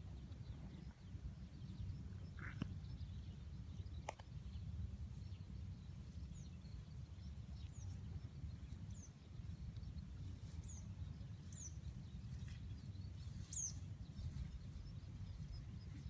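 Quiet outdoor ambience: a steady low rumble with a few faint, short, high chirps from small birds scattered through the middle.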